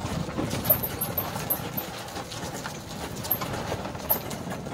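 Clatter and irregular knocking of a rented golf cart jolting slowly over a cobblestone road.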